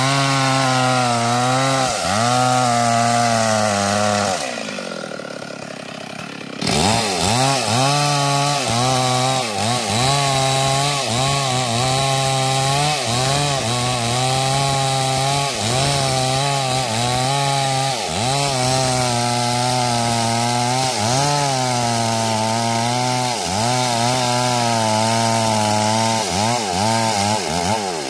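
Stihl MS 382 two-stroke chainsaw cutting into a mahogany trunk at full throttle, its engine note dipping and recovering again and again as the chain bites into the wood. About four seconds in, the revs fall away for around two seconds, then the saw is back at full speed.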